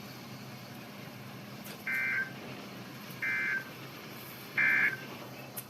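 Three short bursts of Emergency Alert System SAME data tones from a NOAA Weather Radio broadcast, the end-of-message code that closes the alert. The bursts come a little over a second apart over a faint steady hiss and hum.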